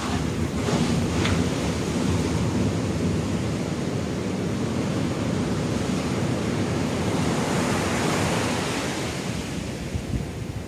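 Ocean surf breaking and washing up the beach, a steady rushing noise with a sharper crash of a breaking wave about a second in and another surge of whitewater near the end, with wind buffeting the microphone.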